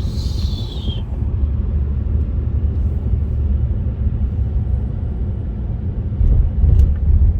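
Second-generation Acura NSX's twin-turbo V6 running on the move, a steady low rumble of engine and road noise, with a short falling whine in the first second and a louder surge about six seconds in.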